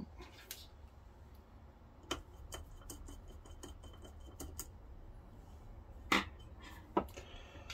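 Small metallic clicks and taps from a screwdriver and fingers working on the video head drum assembly of a 1982 Panasonic NV-366 VCR, loosening parts to remove the worn drum. Two sharper clicks come near the end.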